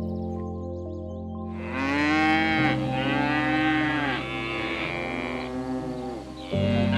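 Long, drawn-out animal calls that rise and then fall in pitch: two back to back from about a second and a half in, and another starting near the end. Background music with steady low notes plays under them.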